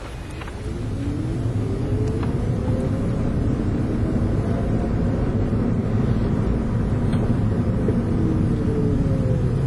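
Toyota Prius under way: tyre and road rumble builds as the car accelerates, with a drivetrain whine that rises in pitch and then falls again as it slows near the end. Two faint knocks come about half a second and two seconds in.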